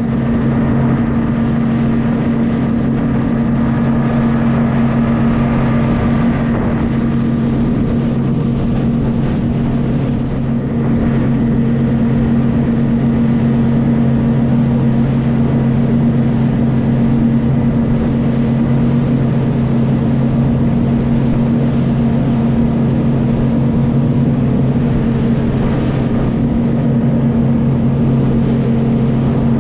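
Motorboat engine running steadily at cruising speed, a constant low drone, with the rush of water from the wake.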